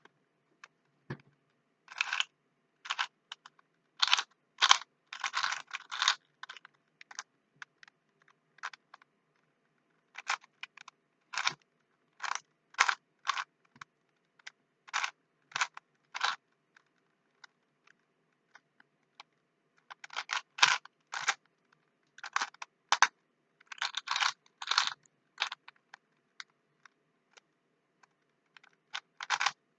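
Rubik's cube layers being twisted by hand: runs of quick, sharp plastic clicks, with quiet pauses of a few seconds between the runs.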